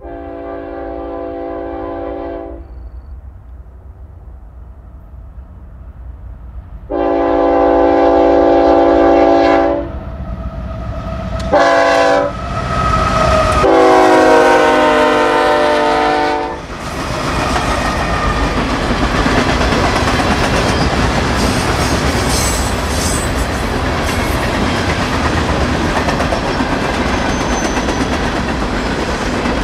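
BNSF freight train's multi-chime locomotive horn sounding four blasts, long, long, short, long, the standard grade-crossing warning, as the locomotives approach and pass. Then the freight cars roll by with a steady clickety-clack of wheels over rail joints and faint wheel squeal.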